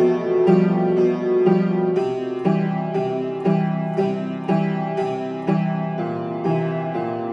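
Upright piano playing a simple three-chord children's song arrangement, with a steady beat of about two notes a second over an alternating bass.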